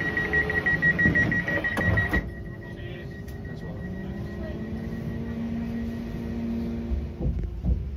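A train's door warning beeping rapidly at a high pitch for about two seconds, then stopping, leaving the low steady hum of the train's motors with a tone that rises slightly. There are a few knocks near the end.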